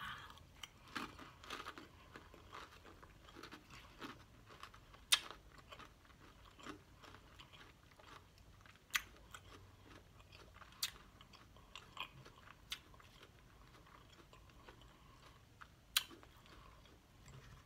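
A mouthful of lettuce salad with ranch dressing being chewed with the mouth closed: wet crunching broken by sharp, crisp crackles every second or so, a few of them louder than the rest.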